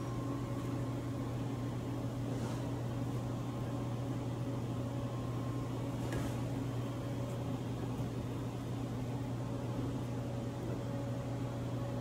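Steady low electrical hum of running kitchen equipment, even throughout, with a few faint soft strokes as a silicone brush spreads sauce on a sandwich.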